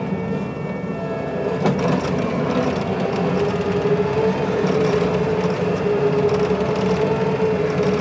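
A Kubota compact tracked machine's diesel engine running under load, stripping dirt, with a steady, slightly wavering hydraulic whine over the engine drone. A single knock sounds just under two seconds in.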